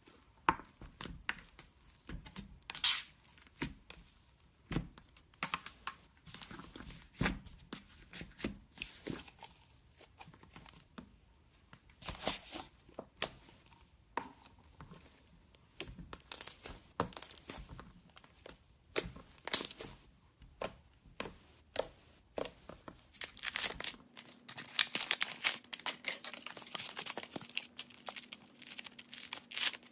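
Hands squeezing and stretching slime: irregular sticky crackles and pops, growing into a dense run of crackling in the last few seconds.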